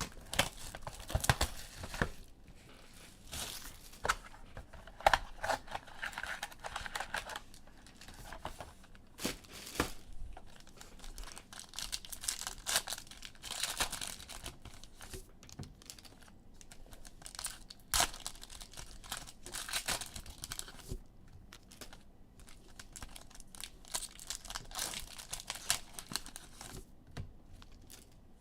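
Foil trading-card pack wrappers being torn open and crinkled, with cards handled, in irregular rustles and sharp crackles.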